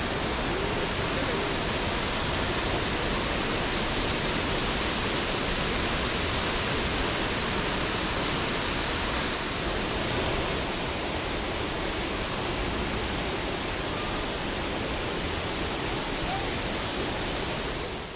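A waterfall's falling water, a steady, unbroken rushing noise.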